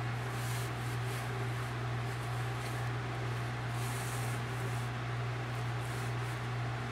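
Steady low hum over an even background hiss, with a few faint, brief rustles, about half a second in and again around four seconds.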